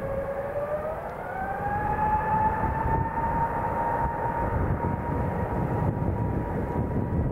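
Jet airliner's engines spooling up for takeoff: a whine rises in pitch over about two seconds, then holds steady over a loud rumble.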